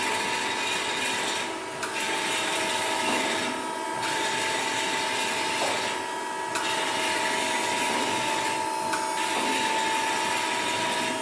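CNC lathe and workshop machinery running: a steady high whine over a broad hiss, the hiss dipping briefly every two to three seconds.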